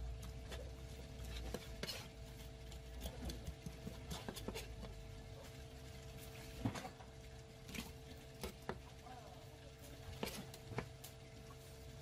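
Knife filleting a fish on a plastic cutting board: irregular scraping cuts and sharp clicks as the blade works along the bones and taps the board, the loudest knock about two-thirds of the way through, over a steady hum.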